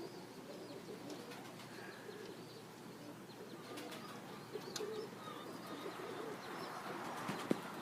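Pigeons cooing faintly, with a few small bird chirps scattered through.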